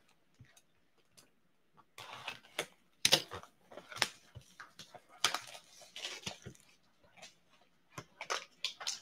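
Hockey card box packaging being opened by hand: plastic wrapping crinkles with many small clicks and taps. It starts about two seconds in and runs in fits, with a pause shortly before the end.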